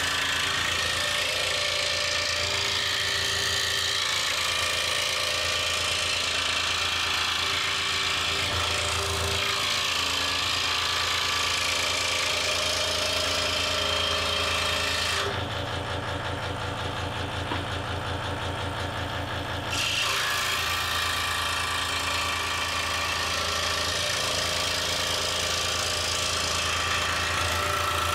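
Delta scroll saw running with its reciprocating blade cutting through a nailed stack of thin wood boards: a steady, fast, rhythmic buzz with a cutting hiss. For a few seconds past the middle the cutting hiss drops away while the saw keeps running, then it returns.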